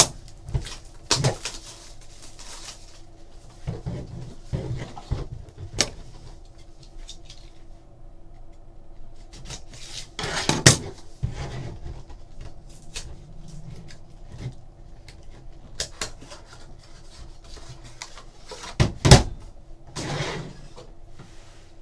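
A cardboard trading-card box being opened and handled, with hard plastic card holders knocked and set down on the table. There are scattered clicks, scrapes and knocks, the loudest about ten seconds in and again near the end, over a faint steady hum.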